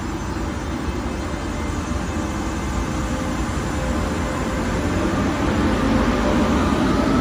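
CP suburban electric multiple unit pulling away from the platform, its traction motors giving a whine that rises in pitch as it gathers speed, the running noise growing steadily louder.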